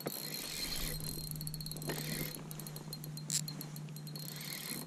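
Spinning fishing reel clicking in fast runs of ticks as it is worked, over a steady low hum, with a brief louder burst about three seconds in.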